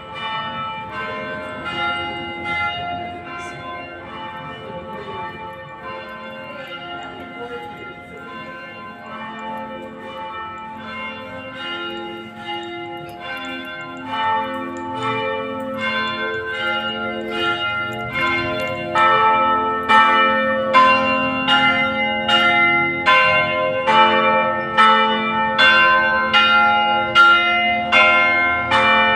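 Church bells ringing, several bells of different pitch struck in quick succession, each strike ringing on. The ringing grows louder about two-thirds of the way through, with strikes about every half second.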